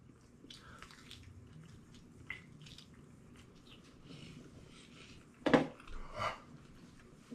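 Faint eating sounds: chewing and handling of hot wings. About five and a half seconds in comes a sudden loud burst of breath, followed by two smaller ones, as the heat of the sauce hits.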